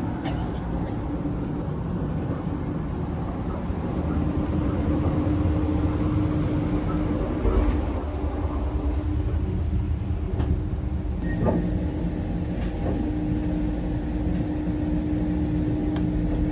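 Sleeper train carriage running on the rails: a steady low rumble with a constant hum, and a few short knocks and clicks about two-thirds of the way through.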